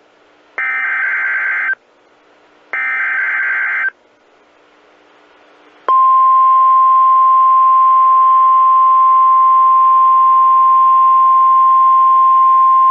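NOAA Weather Radio alert signal heard over a radio receiver: the last two of three SAME digital header bursts, buzzy data tones about a second long with a second's gap between them, then about six seconds in the steady single-pitch 1050 Hz warning alarm tone starts and holds. It opens the station's routine weekly test of the warning alarm.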